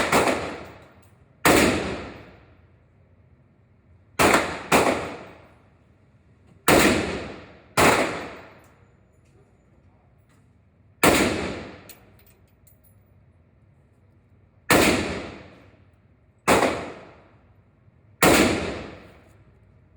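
Handgun or rifle shots fired one at a time at an uneven pace, about ten in all, including two pairs in quick succession, each followed by a ringing echo that dies away over about a second.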